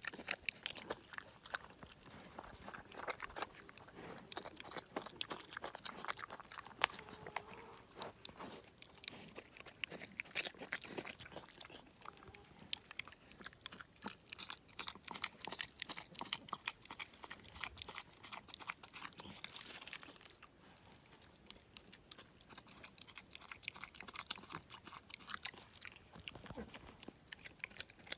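Young boar eating sticky chocolate glaze: dense, irregular wet chewing and lip-smacking sounds, with a brief lull about three-quarters of the way through.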